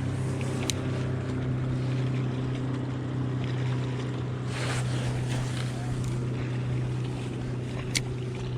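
A boat motor running steadily with an even hum, joined by two sharp clicks and a short rushing sound about halfway through.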